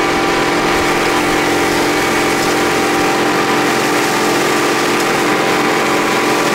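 Tractor engine running steadily under load, driving a Kuhn GA 6501 twin rotary rake through its PTO shaft while it rakes heavy, high-moisture hay. The sound is an even machine drone that does not change pace.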